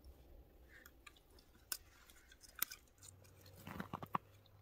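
Faint handling sounds of fishing line being tied to a wooden stick on ice: a few sharp clicks, then a short cluster of crackles and crunches a little before the end.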